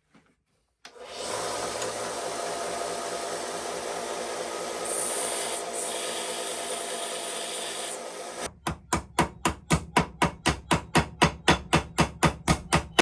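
A newly set knife pin being sanded down flat: a steady sanding noise for about seven seconds, then about twenty quick, sharp strokes, roughly five a second.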